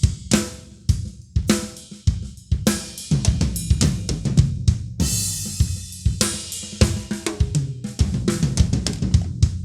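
Drum kit being played: fast snare and tom fills with kick drum and cymbals, a cymbal crash about five seconds in, and last hits near the end that are left to ring.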